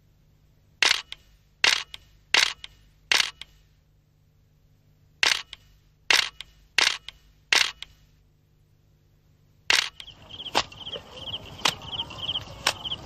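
Camera shutter clicks, each a quick double snap: two runs of four evenly spaced clicks, then one more near the end. Just after the last click, insects start chirping in fast rhythmic pulses, with a few sharp ticks among them.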